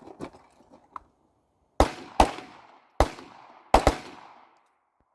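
Gunshots: a few faint cracks in the first second, then five loud shots, a pair about half a second apart starting about two seconds in, a single one, and a quick double near the end, each trailing off in an echo.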